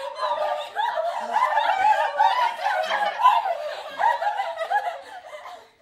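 A group of drama students laughing and giggling together, many voices overlapping at once; the sound cuts off abruptly near the end.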